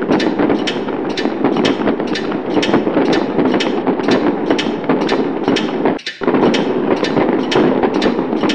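Fireworks sound effect: a continuous barrage of bangs over dense crackling, about three bangs a second, with a brief break about six seconds in.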